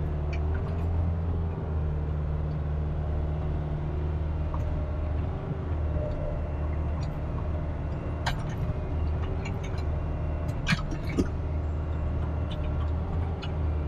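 Kubota RX-503S mini excavator's diesel engine running steadily under working load, with a higher tone that rises and falls as the arm and bucket are moved. A few sharp knocks stand out, about eight and eleven seconds in.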